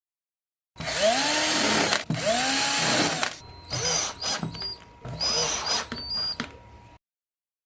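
Power drill driving screws in bursts: two long runs, then several shorter ones, its motor pitch rising as it spins up with each pull of the trigger, stopping abruptly near the end.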